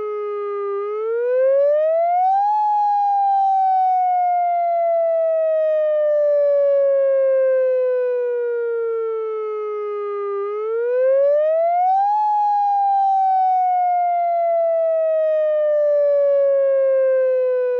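UltraVoice electronic siren sounding a wail: the tone climbs steeply for under two seconds, then slides slowly down for about eight. The climb comes twice, about a second in and again about ten and a half seconds in.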